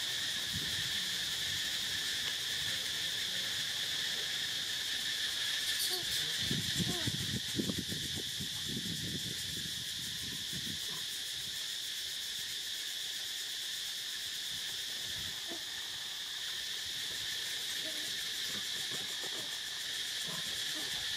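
Steady, high-pitched, unbroken drone of an outdoor insect chorus. A brief patch of low rustling noise comes about six to eight seconds in.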